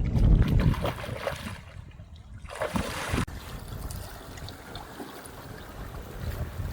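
Wind gusting on the microphone over outdoor water sounds. The wind rumble is strong for about the first second, then eases to a softer, steady wash.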